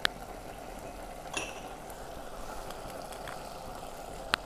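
Mutton and sliced onions cooking in an open pressure cooker, a faint steady sizzle. A light metal clink comes about a second and a half in, and a short click near the end.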